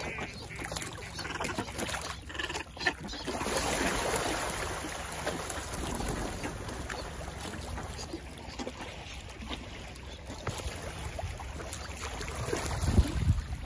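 Water sloshing and splashing around a flock of ducks (pochards, pintails, shovelers and tufted ducks) paddling and jostling at the water's edge, with scattered small splashes. Wind buffets the microphone in low gusts near the end.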